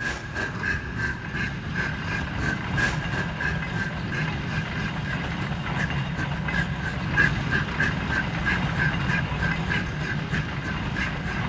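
A train running along the track: a steady low rumble with a stream of clicks and knocks from the wheels, and a thin tone that pulses a few times a second.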